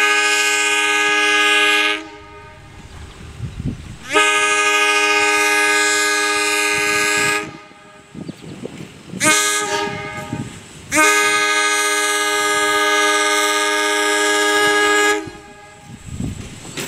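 Horn of a Chicago, North Shore & Milwaukee interurban train sounding the grade-crossing signal as it approaches the crossing: the end of one long blast, then a long, a short and a final long blast, each a steady chord of several notes.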